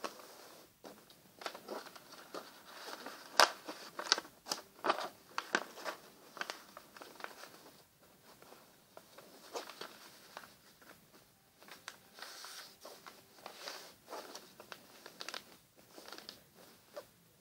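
A sheet of paper being folded and creased by hand: irregular rustling and crinkling, with short crisp strokes as the folds are pressed down, the sharpest about three and a half seconds in.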